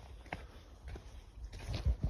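Footsteps of a person walking outdoors: a few soft steps, with low thumps near the end.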